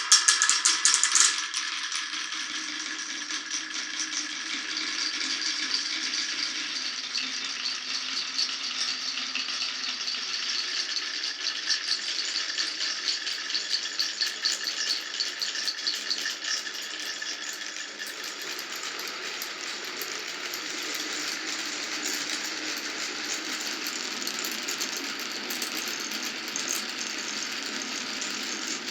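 Glass marbles rolling and clattering down a wooden marble run, a fast continuous rattle of tiny clicks. It is louder and ringing for the first second or so, then settles into a steady rolling rattle.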